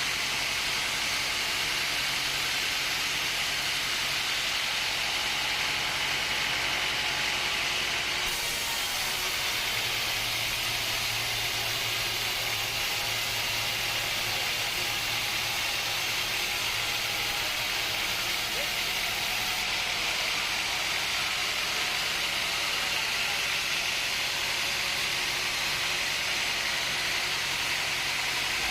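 Steady, hissing machinery noise with a low hum underneath, its character shifting abruptly twice.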